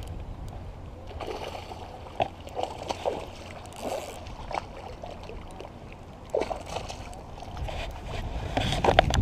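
A hooked peacock bass being reeled in: a spinning reel cranked with scattered short clicks, and splashes as the fish thrashes at the surface, growing busier near the end, over a low wind rumble on the microphone.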